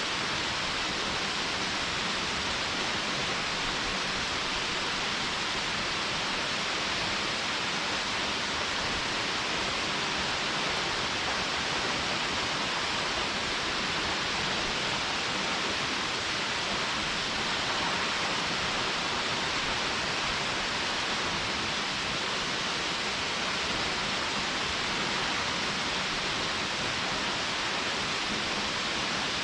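Rushing water of a mountain stream near a waterfall: a steady, even hiss with no breaks.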